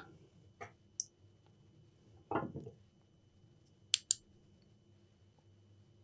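Mostly quiet bench with a few small handling noises, then, about four seconds in, two sharp clicks in quick succession: the switch of a UV lamp being turned on to cure UV solder-mask gel.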